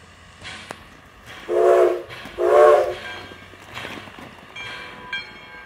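Steam whistle of Nevada Northern steam locomotive No. 93 giving two short blasts, each a chord of several tones, heard from a distance. Two short blasts are the standard railroad signal for releasing brakes and proceeding. Near the end the locomotive's bell starts ringing faintly.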